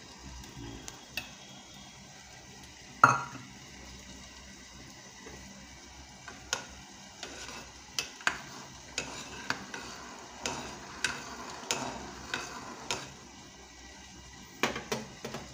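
A utensil clinking and knocking against a pot while water is stirred into a whirlpool for poaching an egg. There is one sharp knock about three seconds in, then a run of light clinks through the middle and a couple more near the end, over a faint steady hiss.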